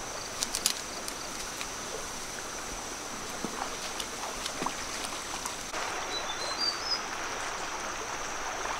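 Outdoor ambience of flowing water: a steady rushing hiss that grows a little louder partway through, under a thin steady high tone. There are a few sharp clicks about half a second in, and a short run of bird chirps about six seconds in.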